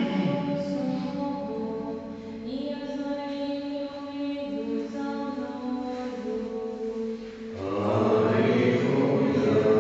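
Church singing: a slow chant of held notes that move in steps, growing louder and fuller near the end as more voices join.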